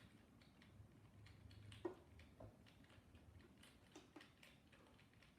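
Near silence with faint, scattered clicks of computer keyboard keys being pressed, over a faint low hum.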